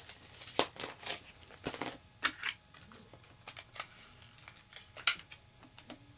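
Comic book being handled with a plastic comic bag and backing board, as in bagging and boarding: a string of short plastic crinkles, rustles and light taps at irregular intervals.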